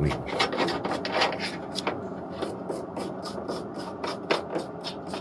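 Hand tool scraping metal in quick, even back-and-forth strokes, about four to five a second.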